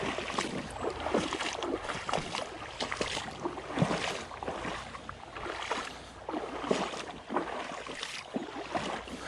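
Creek water splashing and sloshing close by, many small irregular splashes over a steady rush of water.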